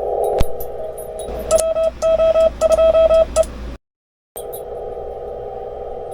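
Amateur HF radio transceiver in CW mode: a hissing band of receiver noise, a click, then a Morse code tone keyed on and off in quick dots and dashes for about two seconds. The audio cuts out briefly, and the receiver noise returns.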